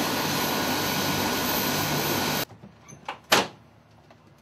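Mi-17 helicopter's twin turboshaft engines running, a loud steady rush with a high hiss that cuts off abruptly about two and a half seconds in. Then two sharp knocks a quarter of a second apart, the second the loudest sound.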